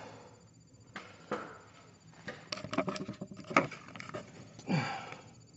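Handling noise: a string of sharp clicks and knocks, then a short rustle, as the camera is picked up and moved.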